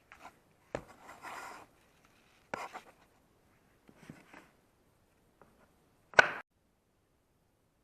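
Laminate floorboards being slid and knocked into place to close up a joint: a few separate sharp knocks and a short scrape about a second in, the loudest knock about six seconds in.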